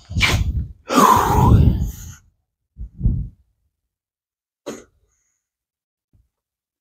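A man's wordless vocal sounds for about two seconds, then a brief low sound about three seconds in and a short click a little later.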